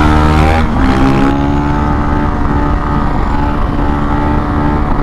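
Honda CRF supermoto motorcycle engines running hard at road speed. The pitch climbs, dips briefly a little under a second in as the gear changes up, then holds a steady, slowly rising drone.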